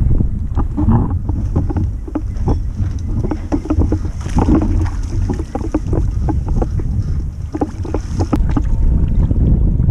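Wind rumbling over the microphone, with the splashing and dripping of a double-bladed kayak paddle dipping into the water stroke after stroke.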